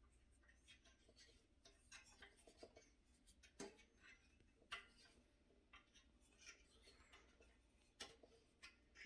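Faint scattered clicks and short scraping sounds of flat-pack desk parts being handled and screwed together, with a few sharper ticks near the middle and near the end.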